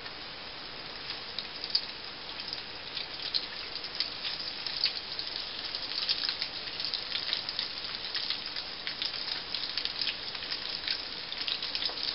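Biscuit-dough donuts frying in hot oil in a saucepan: a steady sizzle full of fine crackling pops. It starts sparse and grows busier after about the first second as the dough heats in the oil.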